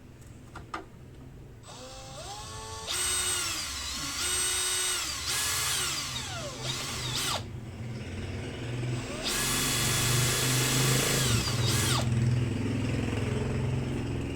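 Power drill run in a series of about six bursts, each whining up to speed and winding down again; the longest burst, near the end, runs for a few seconds.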